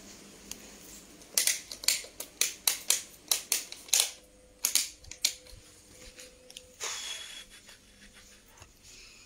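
A quick run of sharp clicks or taps, about three a second, then a few more, with a brief rustle about seven seconds in and a faint steady hum underneath from about four seconds on.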